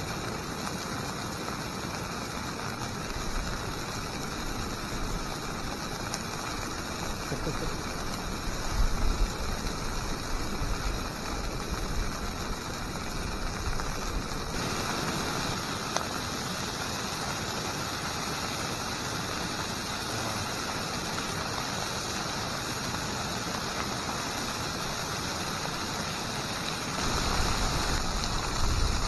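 Basque chorizo sausages sizzling in a pan, a steady hiss, with two spells of low wind rumble on the microphone, about nine seconds in and near the end.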